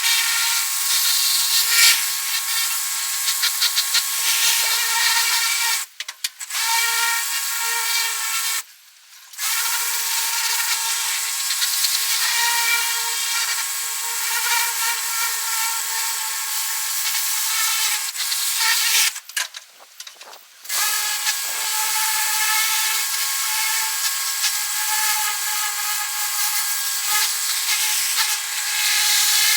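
A handheld power tool running steadily at work. It stops briefly a few times and starts again: about six seconds in, about nine seconds in, and for about a second near twenty seconds.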